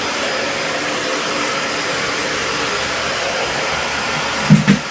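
A steady, loud rushing noise, with a short low burst of sound about four and a half seconds in.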